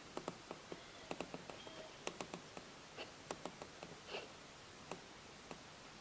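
Faint, irregular clicks and taps around a caged eastern rosella parrot, with a few brief, soft chirps among them.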